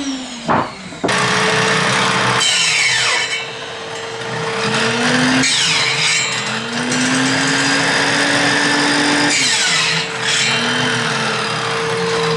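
Circular saw running and cutting several pieces of wood: its motor winds down, starts up again about a second in, and its pitch drops under load during each cut amid loud rasping, then winds down near the end.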